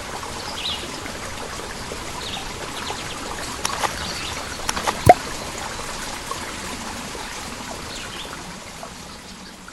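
Steady trickle of running water with a few short bird chirps and small clicks, and one sharp click about five seconds in; it fades away near the end.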